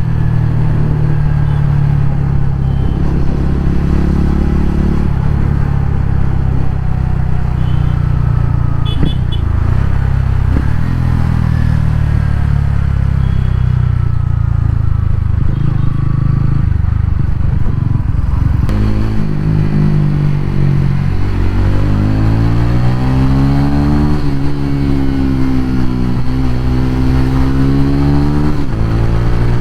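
TVS Ronin 225's single-cylinder engine running as the motorcycle rides along, holding a fairly steady pitch at first, then rising and falling several times in the last third as it is accelerated through the gears.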